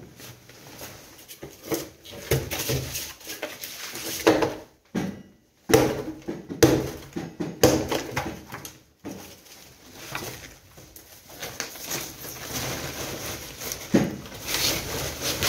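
Irregular knocks and rustling of full woven-plastic rubble sacks being shifted and handled, with a louder rustle near the end.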